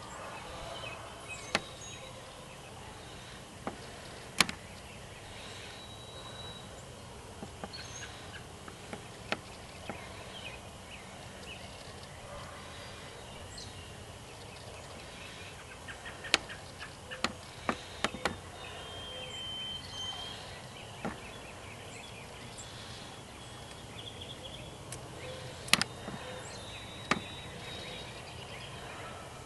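Outdoor evening ambience: a steady low background, short bird calls now and then, and about a dozen sharp clicks or snaps scattered through, the loudest about four seconds in and near the end.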